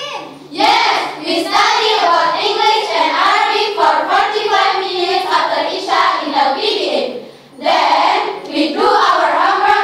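A group of girls singing together without instruments, many voices in unison, with a short break between phrases about seven seconds in.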